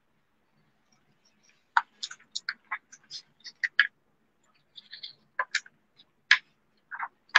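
Paper and a sketchbook being handled and its pages flipped: irregular short crackles and clicks starting about two seconds in.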